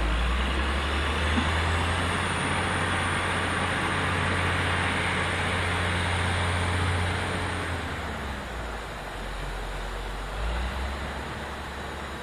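Heavy diesel truck engine pulling hard under load, with a high thin whine over it. It eases off about two-thirds of the way through, then picks up briefly again near the end.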